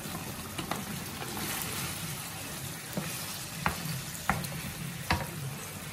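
Pork in tomato sauce sizzling steadily in a speckled nonstick frying pan. A wooden spatula stirs it, knocking against the pan about four times in the second half.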